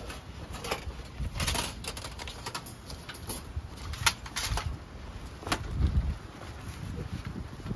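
Sharp metallic clinks and clanks, a handful at irregular intervals, as the folding steel panels of a Uniflame wood grill are opened out and fitted together.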